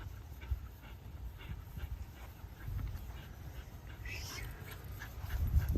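A dog panting in a steady rhythm over a low rumble, with a brief high sound about four seconds in.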